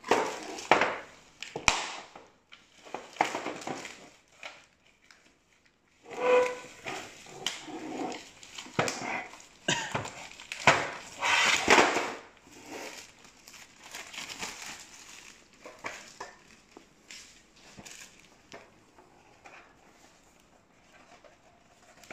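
Gift packaging being crinkled and torn open in irregular bursts with short pauses, louder in the first half and sparser near the end.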